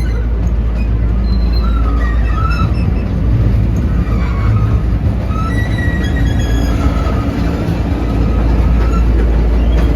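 Thomas-themed amusement park ride train running along its track, heard from on board: a steady low rumble with short, wavering high squeals now and then.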